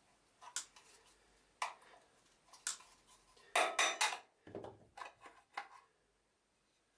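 Sharp metallic clicks and clinks from the clamped tabs of a vacuum cleaner motor's sheet-metal cover being bent back and the cover pried off. A few single clicks come first, then a quick cluster of loud ones about halfway through, followed by lighter taps.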